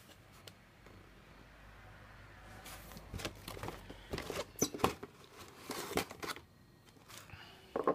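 Cardboard model-kit box being handled and opened by hand: scattered soft scrapes and taps of the box and lid, mostly in the second half.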